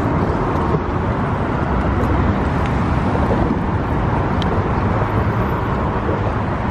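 Steady road traffic noise, heaviest in the low rumble, with no single vehicle standing out.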